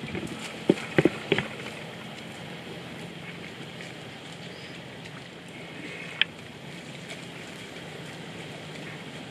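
Steady outdoor background noise, broken by a quick run of four sharp knocks about a second in and one more sharp click about six seconds in.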